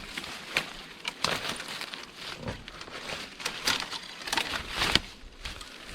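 A person's footsteps crunching over dry ground while walking, an uneven run of crackles and crunches.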